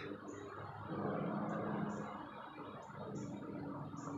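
Small bird chirps: short, high, thin notes repeated about every half second to a second, over a low steady hum.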